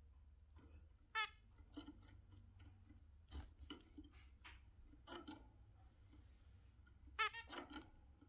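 Zebra finches giving short nasal calls, one about a second in and a few together near the end, with soft clicks and taps in between.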